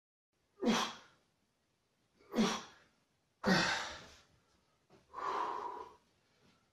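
A man's forceful exhales from the effort of triceps dips on a dip station: three short, sharp breaths out a second or so apart, then a longer, softer breath out near the end as the set finishes.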